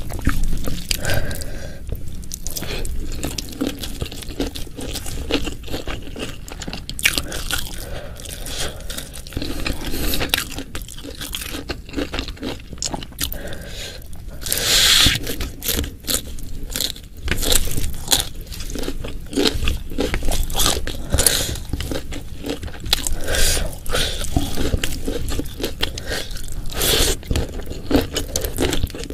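Close-miked eating sounds: food being bitten, crunched and chewed in an irregular run of short crisp crunches, with a louder, longer crunch about fifteen seconds in.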